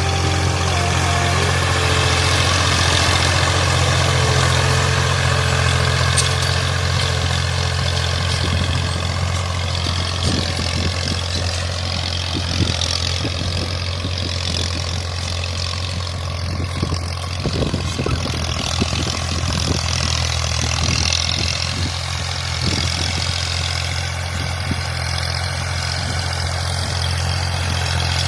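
Massey Ferguson 240 tractor's three-cylinder diesel engine running steadily while pulling a plough, with scattered clicks and knocks around the middle.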